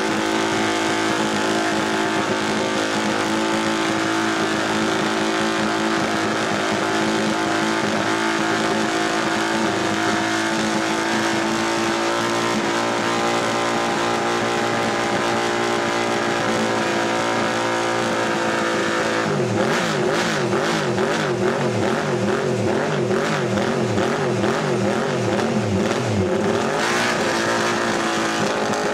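MV Agusta three-cylinder racing motorcycle engine warming up, running at a steady speed. About two-thirds of the way through, the throttle is blipped repeatedly, the revs rising and falling about twice a second for several seconds, before the engine settles back to a steady run.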